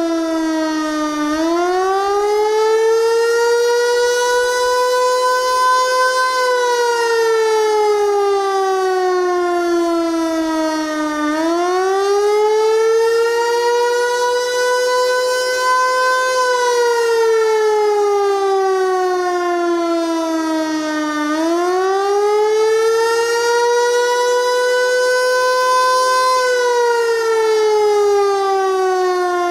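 Federal Signal Eclipse 8 electronic outdoor warning siren sounding a wail tone during a test. The pitch rises for about five seconds and falls for about five, and the cycle repeats about every ten seconds at a steady loudness.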